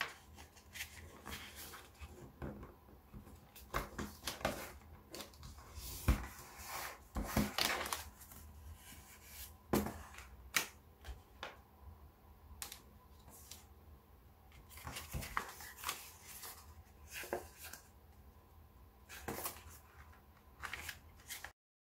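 Origami paper being folded and creased by hand: irregular rustles and crackles of the paper, with sharper snaps where a crease is pressed firm. The sound cuts off suddenly near the end.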